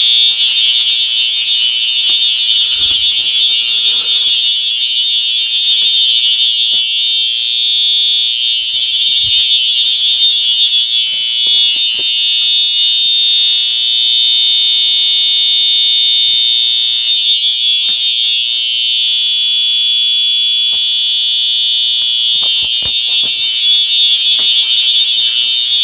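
FCI HEF-STW horn strobe, a rebranded Faraday three-tone unit set to its horn tone, sounding a loud, continuous, high-pitched electronic horn without a break.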